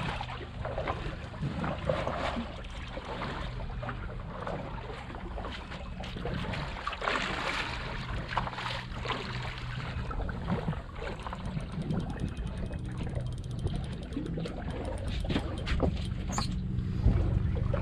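Mercury outboard motor idling steadily at the stern, with water sloshing against the hull and wind on the microphone.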